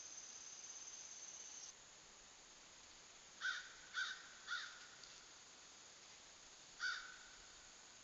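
Crow cawing: three caws in quick succession, then one more about two seconds later. Before them, an insect trills steadily and cuts off abruptly about two seconds in.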